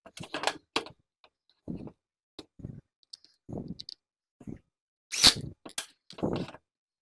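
Scattered clicks and knocks of hand tools and a chainsaw body being handled and set down on a steel workbench, with louder clacks about five and six seconds in.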